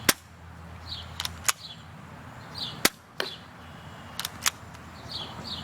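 Colt 1911 airsoft pistol firing single shots, each a sharp snap. The two loudest come at the very start and about three seconds in, with fainter clicks in between.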